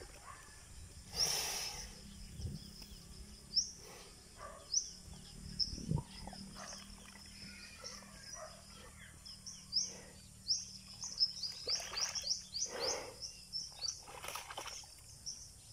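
A carabao (water buffalo) wallowing in a muddy pool, with short bursts of mud sloshing and splashing as it shifts and rolls, the densest near the end. Small birds chirp over it in short, high rising notes, more and more often in the second half.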